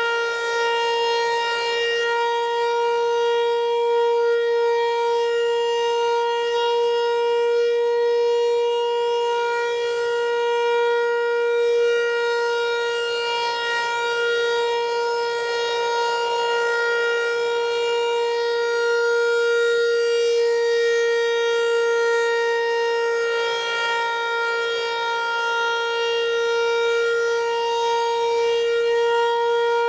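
Federal Signal Equinox outdoor warning siren sounding a steady tone at one unchanging pitch, swelling slightly in loudness. The siren has a damaged centre cone that has been refitted rotated and protruding from the horn face.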